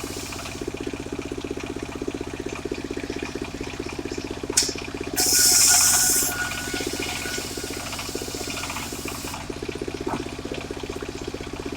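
Engine of a portable circular sawmill running steadily. About five seconds in there is a sharp click followed by a loud hiss lasting just over a second.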